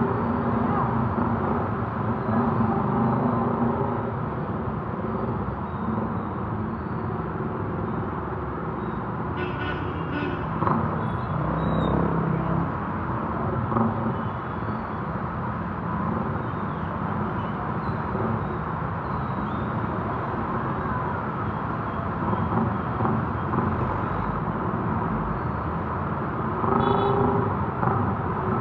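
Street traffic: motor vehicle engines running steadily, with brief higher-pitched sounds about ten seconds in and again near the end.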